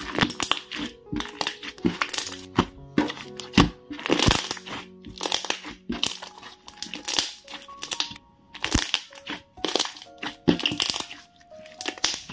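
Thick slime squeezed and pressed by hand, giving many sharp pops and clicks from trapped air, several a second and some in quick clusters. Background music plays throughout.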